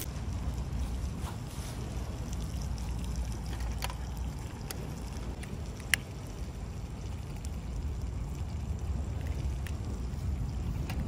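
Steady low rumble of wind on the microphone, with a few light clicks and one sharp click about six seconds in as hands handle a hurricane oil lamp.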